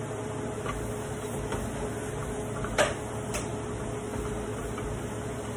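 A steady mechanical hum with a held tone and faint ticks. A sharp click comes a little under three seconds in, and a fainter one about half a second later.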